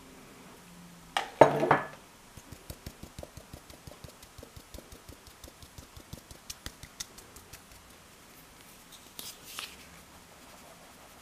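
A mesh sieve of flour is knocked against a glass mixing bowl to sift it. There is a loud clatter about a second in, then a steady run of light taps, about four or five a second, for several seconds, and a shorter clatter near the end.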